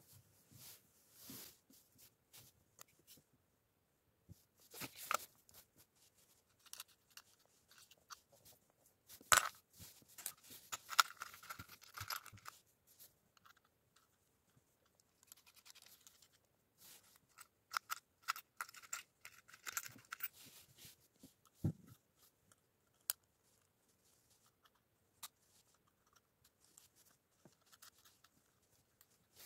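Handling noises: scattered clicks, scrapes and rattles as small metal accessory bits are picked from a plastic case and fitted to a mini rotary tool, with the busiest rattling in two stretches, near the middle and about two-thirds through. The tool's motor is not running.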